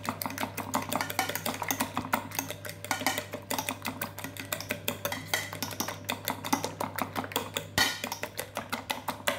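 Raw eggs being beaten by hand with a utensil in a bowl: rapid, steady clicking of the utensil against the bowl.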